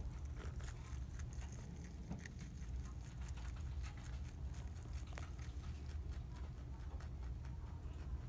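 A domestic rabbit chewing romaine lettuce and parsley: a quick, irregular run of small crisp crunches, over a low steady hum.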